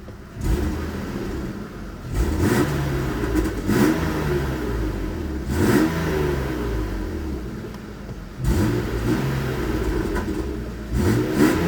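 BMW E36 328i's stock 2.8-litre M52B28 inline-six revved repeatedly, the pitch climbing and then falling back each time, about five times, through the standard exhaust.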